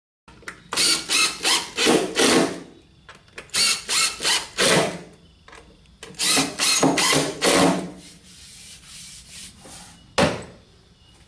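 Cordless impact driver driving short screws into a particleboard panel in short loud bursts, about a dozen in three groups, with a single sharp knock near the end.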